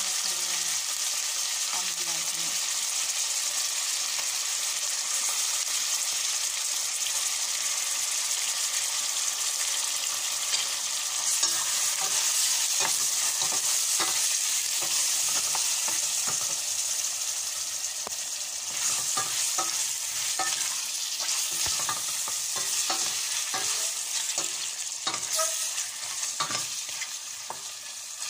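Raw chicken pieces sizzling in hot oil with sautéed onions in a stainless steel pot, a steady frying hiss. From about halfway on, a wooden spatula stirring the chicken scrapes and knocks against the pot in many short clicks, while the sizzle slowly dies down.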